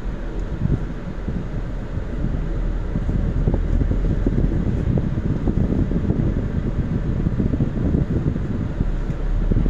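Steady low rumble inside a moving vehicle's cabin: engine and road noise while driving slowly in traffic.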